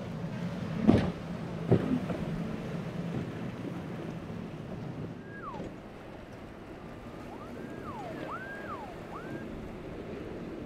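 Boat engine running over wind and water, with two sharp slaps of a hull hitting waves about a second in and again shortly after. Later come a few faint whistle-like calls that rise and fall.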